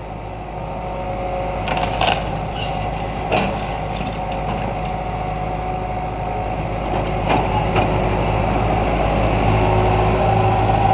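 John Deere backhoe's diesel engine running steadily under load while the machine tears into a wooden house, with several sharp cracks and crunches of splintering timber. The engine grows louder toward the end.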